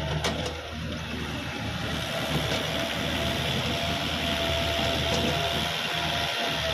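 Kubota L5018 diesel tractor running steadily under load while driving a rear rotary cultivator through a rice field, with a steady whine running through the engine noise.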